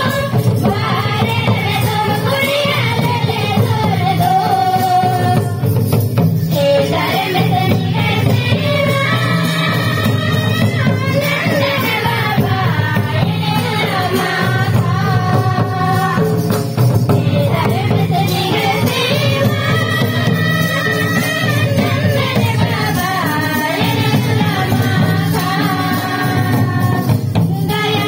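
Group of women and girls singing a Sarna bhajan, a devotional song, with a mandar barrel drum and a large laced bowl-shaped drum beating along.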